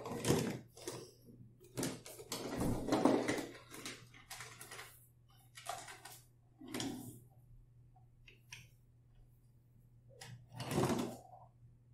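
Small toy train engine pushed by hand along wooden toy railway track, its wheels rolling and rattling over the wooden rails in several separate runs.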